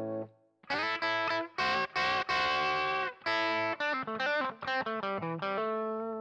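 Electric guitar played through the BOSS BR-900's COSM overdrive amp model. After a short gap comes a riff of short, choppy chords with quick stops, ending on a chord left to ring and slowly fade.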